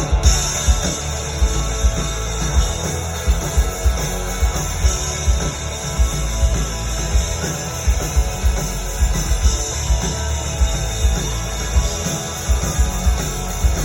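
A live rock band playing an instrumental stretch without vocals: electric guitar over a steady, heavy drum beat, loud and recorded from the crowd.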